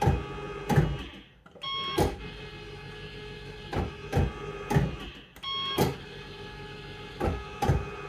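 A Bell-Fruit Firecracker electromechanical fruit machine spinning its reels three times in a row. Each spin starts with a few short beeps and a steady whirr of the reel motors, and ends with three clunks in quick succession as the reels stop one after another.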